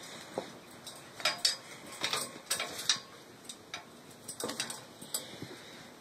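Irregular sharp taps and clicks, bunched in a few quick runs: a cockatoo's beak and claws knocking on a metal chair base.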